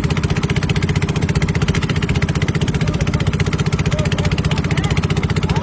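A small engine running steadily at an even speed, with a fast, regular chugging beat.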